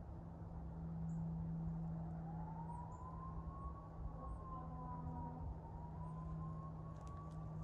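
A distant siren wailing, its pitch rising and falling slowly, starting about two seconds in over a steady low hum.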